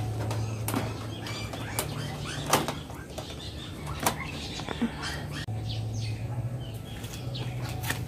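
A caged bird fluttering its wings as a cat paws at the wire mesh, with several sharp clicks and rattles of the cage, the loudest about two and a half seconds in.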